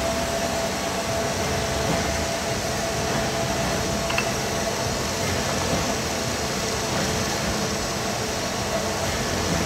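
Steady mechanical running noise with a faint steady whine, from an overhead crane driven from a handheld remote as it carries a hydraulic cylinder's chrome piston rod.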